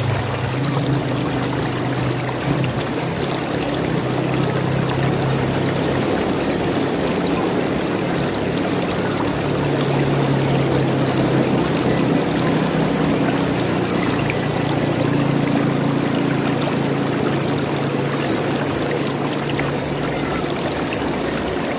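Running water gurgling and splashing steadily, like a stream or water pouring over rocks.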